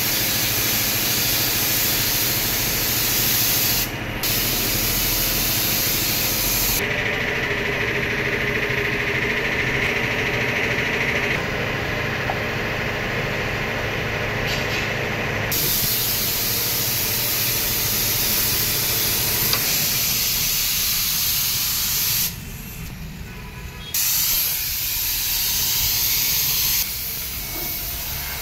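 Compressed-air spray gun hissing steadily as it blasts a mist of liquid, over a low steady hum. The hiss changes tone for several seconds in the middle and cuts out briefly twice.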